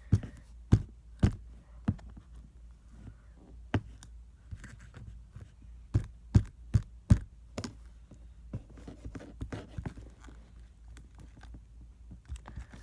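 Homemade slime being squeezed and stretched by hand, giving irregular sharp clicks and pops as trapped air bursts, over a low steady hum.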